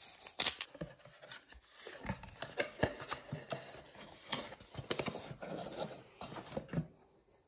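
Cardboard box and small sachets handled on a table: uneven rustling and scraping with many light clicks and taps as the box holding a ceramic cup is opened. The handling stops about seven seconds in.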